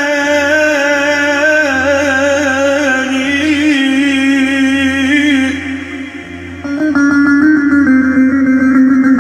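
Man singing an uzun hava, Turkish free-rhythm folk song, in long wavering, ornamented notes with a long-necked saz (bağlama) sounding beneath. A little over halfway through the voice stops and the saz carries on alone with quick plucked notes.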